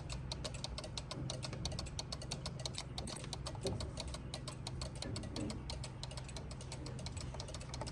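Regula cuckoo clock movement ticking, a quick, even run of several ticks a second over a steady low hum.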